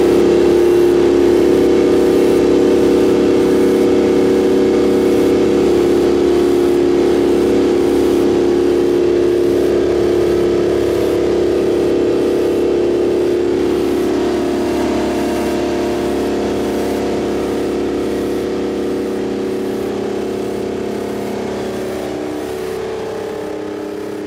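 The Rite 750 Earthquake tractor's Detroit Diesel 12V92 two-stroke V12 running steadily under way, heard from on the tractor. Its tone holds even, and it grows gradually quieter over the second half.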